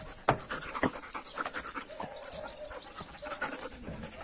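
Dog panting close by, with a few short scattered knocks and scuffs.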